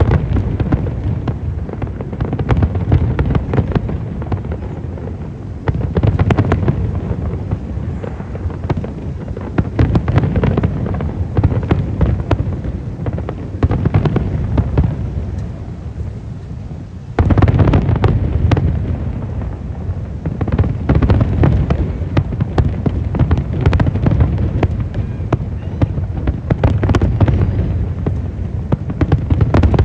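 Aerial firework shells bursting in rapid, overlapping succession, a continuous barrage of sharp reports over a deep rumble. A little past halfway the barrage suddenly gets louder.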